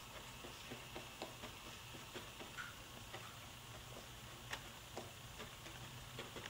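Flat paintbrush dabbing and stroking on canvas: faint, irregular small ticks over quiet room tone.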